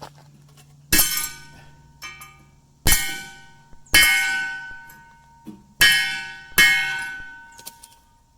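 A hammer striking a bent piece of thin steel, five loud ringing blows at an uneven pace with a couple of lighter taps between them, banging the metal straight.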